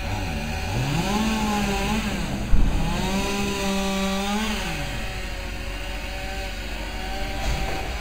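Chainsaw revs up about a second in, runs at full speed for a few seconds while cutting up fallen tree limbs, then drops back toward idle. A sharp thump sounds about two and a half seconds in.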